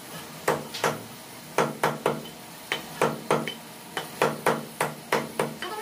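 Cleaver chopping chicken on a thick wooden chopping block: a run of sharp chops, each with a woody thud, about three a second in short groups.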